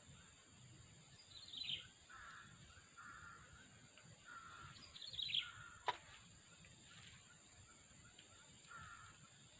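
A crow cawing, twice: about a second and a half in and again about five seconds in, each call short and falling. Softer, lower bird calls come between them, and a single sharp click follows just after the second caw.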